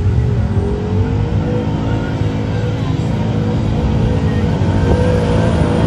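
Twin-turbo Chevrolet Silverado 3500HD pulling truck's engine running at high revs under full load as it drags a weight-transfer sled. It is a loud, steady drone whose pitch climbs over the first second or two and then holds.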